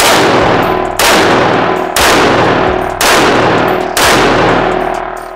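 AR-style semi-automatic rifle firing five shots at a steady pace of about one a second. Each report rings out with a long reverberant tail in the concrete indoor range.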